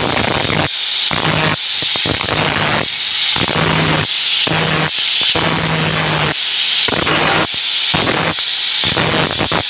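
Electric angle grinder with an abrasive disc grinding a brass boat propeller held in a vise, the disc biting in repeated short passes roughly once a second over the steady hum of its motor. The grinding is meant to stop the propeller slipping on its shaft.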